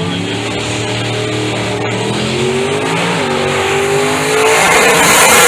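Big-tire drag car engine pulling hard down the strip, its pitch climbing, dropping briefly about three seconds in and climbing again. It turns into a louder roar near the end.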